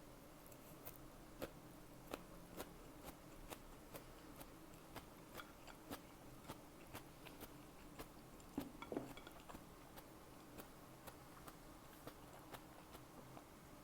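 Close-miked chewing: soft, even mouth clicks about twice a second, with a louder brief burst of noise about nine seconds in.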